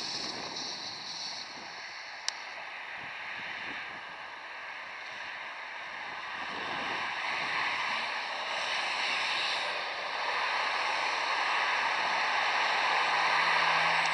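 Road traffic on a dual carriageway: a steady hiss of tyres and engines that swells toward the end as a car approaches, with a low engine hum joining near the end. A single sharp click about two seconds in.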